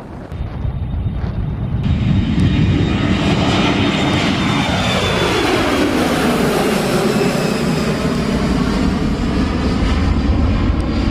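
Citilink Airbus A320's twin jet engines running at high power as the airliner rolls past along the runway and away. The sound swells about two seconds in, with a sweeping, falling tone pattern in the middle as it goes by.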